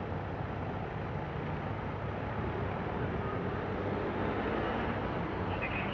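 Road traffic passing: a motorcycle and then a small car going by, their engines heard as a steady rumble.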